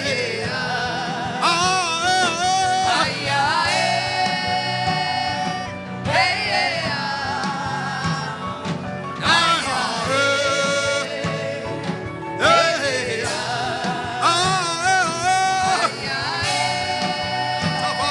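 Worship music: a voice singing long, wavering notes in phrases of a few seconds, over steady instrumental backing.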